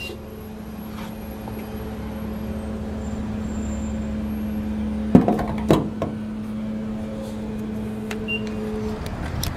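Fuel dispenser's pump motor humming steadily at one tone, with two sharp clacks a little past halfway. The hum cuts off about nine seconds in.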